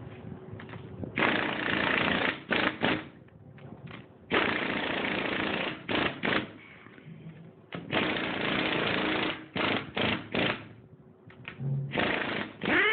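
Pneumatic wrench tightening cylinder head nuts, running in several bursts of a second or so each, with short blips of the trigger between them.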